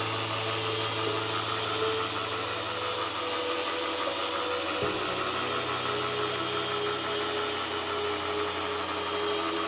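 Shine Mate EX603 dual-action polisher running at a low speed with an orange foam pad on the paint, a steady motor hum; this is the final polishing pass to finish the paint and bring up gloss. The pitch of the hum shifts abruptly about five seconds in.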